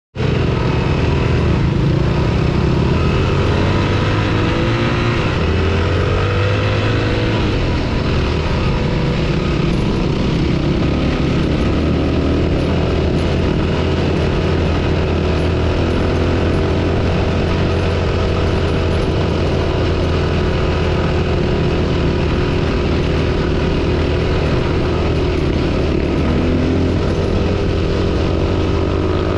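Four-stroke single-cylinder dirt bike engine running continuously under way, its revs rising and falling with the throttle, heard close up from the bike itself.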